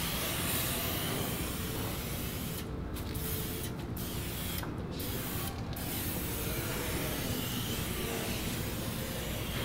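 Preval sprayer hissing as it sprays dye. The spray runs steadily, breaking off in four short pauses between about three and six seconds in.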